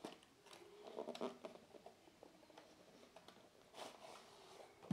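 Faint rustling and scraping of a cardboard box being opened and a metal-cased power supply slid out of it, with a cluster of short scrapes about a second in and a longer rustle near the end.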